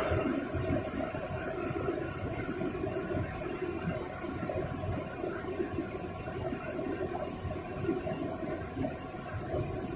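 Fast-flowing river water rushing steadily, a continuous even noise without breaks.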